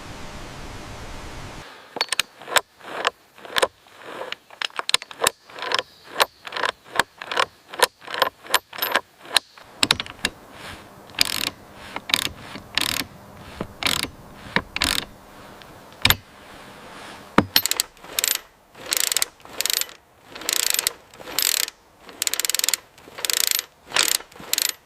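A hand tool working wood in repeated strokes, about two a second: short and sharp at first, longer in the last few seconds. A steady hiss comes before the first stroke.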